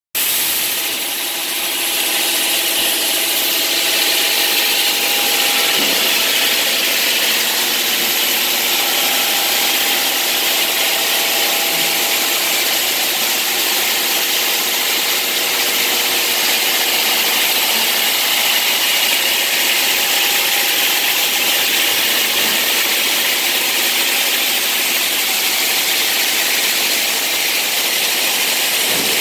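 Lovato EVO 2.2 thin-veneer stone saw running, several water-cooled diamond blades cutting granite blocks at once. It makes a steady, unbroken high noise of blades grinding through wet stone and water spray, with faint steady hum tones underneath.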